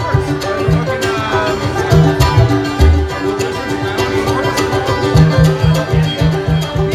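Live string band playing a bluegrass-style instrumental: banjo and mandolin picking over a steady upright-bass line.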